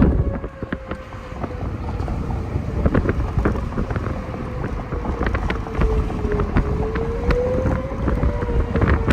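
Outdoor tornado warning siren wailing faintly, its pitch sinking slowly and then rising again, under heavy wind buffeting the microphone with scattered sharp clicks.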